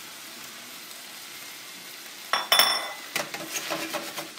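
A pan of mixed vegetables sizzling steadily in a stainless steel sauté pan. About two seconds in comes a sudden loud metallic clank with a brief ring, then a run of knocks and scraping as the pan and vegetables are worked.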